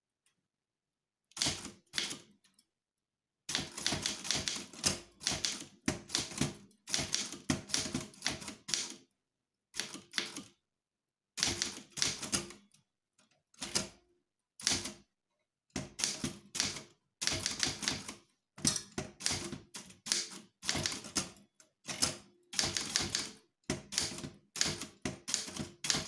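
Facit typewriter keys struck in quick runs, with short pauses between the runs; the typing starts about a second in.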